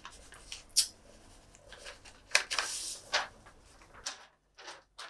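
Sheet of paper being handled at a table: several short rustles and light taps, the loudest about two and a half seconds in.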